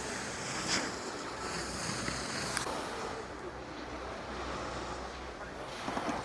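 Steady rushing noise of wind buffeting the microphone, with a few faint knocks.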